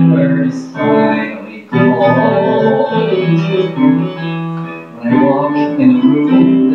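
Man singing a musical-theatre song into a microphone, with held, sliding notes over piano accompaniment.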